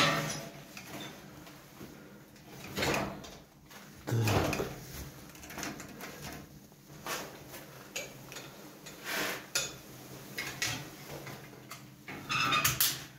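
Irregular clunks and rattles of things being handled and moved about close to the microphone, with several louder knocks at the start, around three and four seconds in, and near the end.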